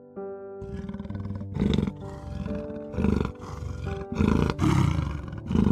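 Leopard roaring in a series of rough, rasping grunts, about one a second, over background music.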